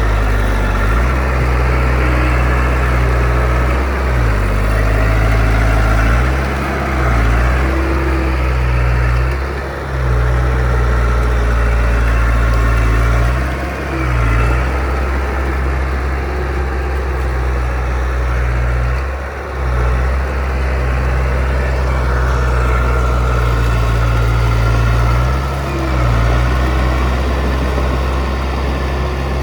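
Heavy engine of construction machinery running, a steady low hum that dips briefly every few seconds.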